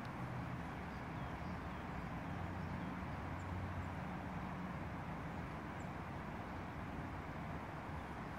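Steady low outdoor rumble of background noise, with a few faint, short, high bird chirps scattered through it.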